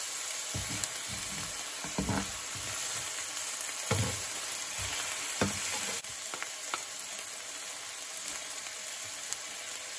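Steak sizzling in butter in a nonstick frying pan, with a metal spatula scraping and knocking against the pan as the steak is pressed and moved. The knocks come a few times in the first half, and the sizzle drops slightly about six seconds in.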